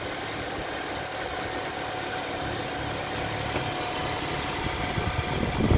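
Car engine idling steadily, with a few low thumps near the end.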